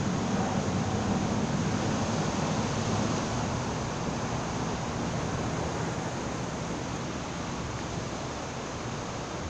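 Steady wash of sea surf on jetty rocks, with wind blowing.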